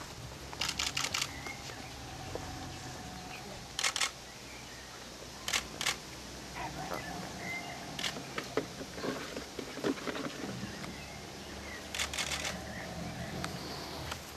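SLR camera shutters firing in short bursts of two to four quick clicks, the bursts coming every few seconds.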